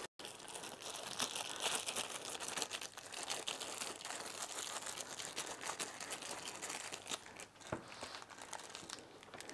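Plastic Ziploc bag worn over the fingers crinkling as it rubs Sno-Seal wax into a leather work glove: a steady, quiet crinkling crackle made of many small clicks.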